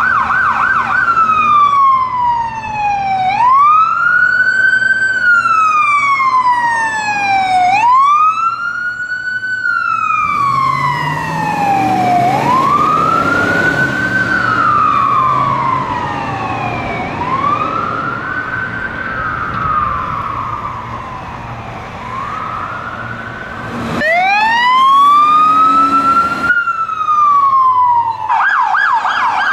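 Ambulance's electronic siren wailing, rising and falling about every four seconds, with the engine and tyres of the passing vehicle heard in the middle. Near the end a different siren comes in with a rising wail and then a fast yelp.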